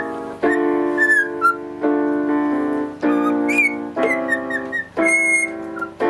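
Cockatiel whistling short chirps and glides along with a slow tune of single piano notes, about one struck note a second, each ringing out; a longer held whistle comes about five seconds in.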